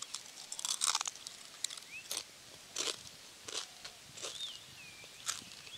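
Crisp achappam, a deep-fried rice-flour rosette studded with sesame, crunching as it is bitten and chewed: irregular short crisp cracks every half second or so.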